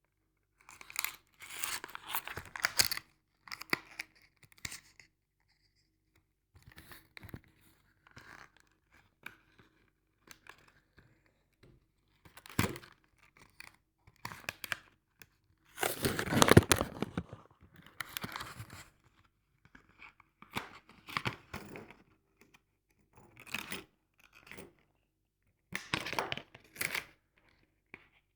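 Irregular bursts of rustling and crinkling handling noise, stop-start with short quiet gaps, loudest for a couple of seconds about sixteen seconds in.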